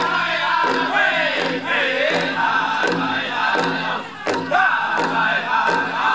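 Pow wow drum group singing high-pitched chanted vocables over a steady drumbeat of about two strokes a second.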